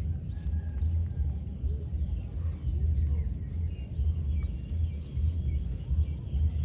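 Outdoor ambience: a low, uneven rumble of wind on the microphone, with faint scattered bird chirps.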